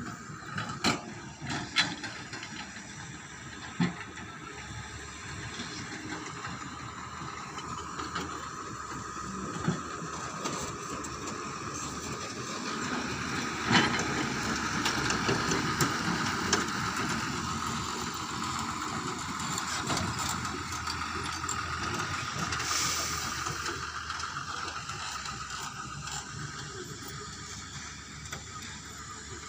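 Diesel engines of a hydraulic excavator and a tipper lorry running at a construction site. The engine noise swells in the middle and eases off near the end as a loaded tipper lorry passes close by. A few sharp knocks come in the first few seconds.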